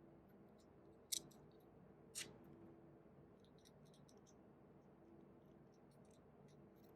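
Faint handling of small metal screws and tools during assembly of a compensator onto a weapon light: two sharp clicks about one and two seconds in, then a run of faint light ticks.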